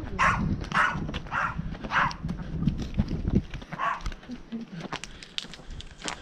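A dog barking, a quick series of about two barks a second, then one more bark about four seconds in. Footsteps sound near the end.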